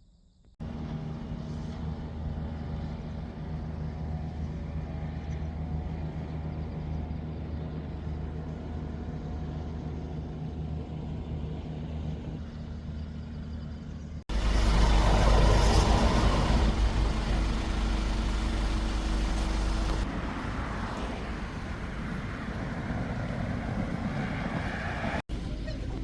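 A vehicle engine running steadily while driving, with a low hum and road noise. After a cut about 14 s in the rumble turns louder and rougher, with wind-like hiss.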